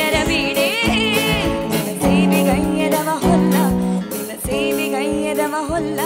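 A female voice singing a Kannada bhavageete (light song) live through a stage microphone, with wavering, ornamented melodic lines over band accompaniment and a steady percussion beat.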